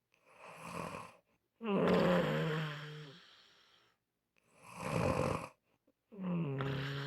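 A person snoring in a slow rhythm, twice over: each time a short, rasping snore, then a longer, louder breath carrying a low, steady hum that fades away.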